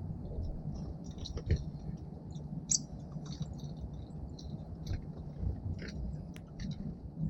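Small songbirds at a seed feeder giving short, high chips and twitters at irregular intervals, with a few sharp clicks, over a steady low background rumble.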